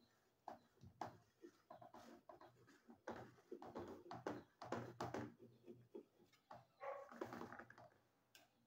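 Faint scraping and light irregular taps of a knife blade run around the inside of an aluminium tube pan, loosening the set creamy layer from the metal.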